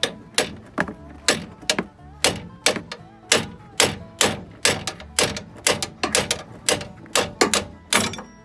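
A hammer striking metal in a steady run of blows, a little over two a second, each with a short metallic ring.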